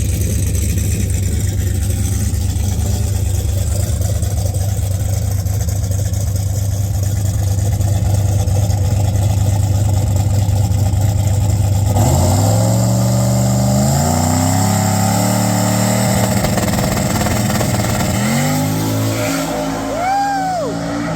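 Turbocharged LS V8 drag car: the engine runs at a steady held note for about twelve seconds, then the car launches and the engine note climbs in steps through the gear changes on a hard pass. A whistling rise and fall comes near the end.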